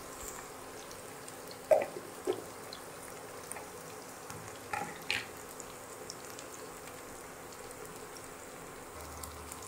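Sliced onions, ginger and garlic frying gently in mustard oil in a non-stick pan, a soft steady sizzle. A few short knocks come through it, two about two seconds in and two about five seconds in.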